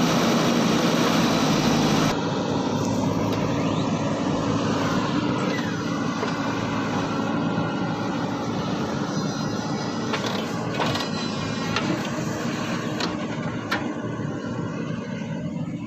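JCB 3DX backhoe loader's diesel engine running steadily under work, with a few sharp knocks near the end.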